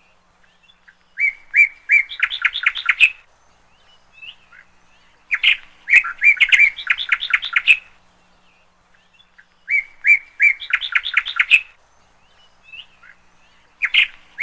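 A songbird singing the same short phrase over and over, about every four seconds: a couple of opening notes, then a quick run of chirps.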